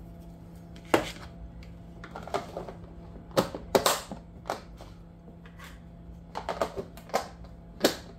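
Clear plastic food-storage tubs being closed: lids pressed on and their clip tabs snapped shut, with the tubs knocked against a wooden chopping board. This makes an uneven string of about ten sharp plastic clicks and knocks.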